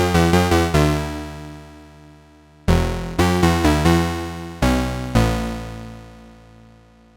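Behringer 2600 analog synthesizer playing short, plucked-sounding notes in phrases. There is a quick run of notes at the start and another run near three seconds in, then a couple of lower notes that ring out and fade away.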